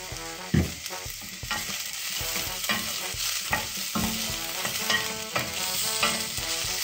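Onions and sliced green chillies sizzling in hot oil in a stainless steel saucepan, stirred with a wooden spoon that knocks and scrapes against the pan, the sharpest knock about half a second in. The sizzling is a little too much, a sign that the heat is set too high.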